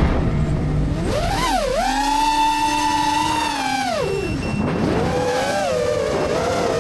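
GEPRC Mark5 FPV quadcopter's motors and propellers whining, the pitch following the throttle. The whine dips about a second and a half in, holds steady, drops near four seconds, then climbs and wavers.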